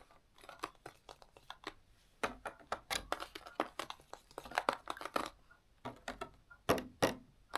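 Hands handling toy packaging for ASMR: scattered crinkles and light taps, busiest a couple of seconds in and again near the end.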